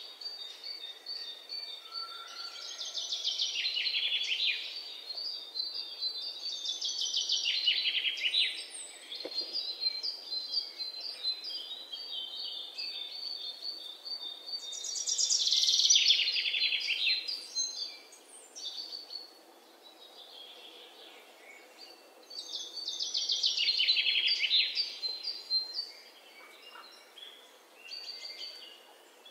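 Songbirds singing: bursts of rapid, high chirping trills, some sweeping downward, coming every few seconds.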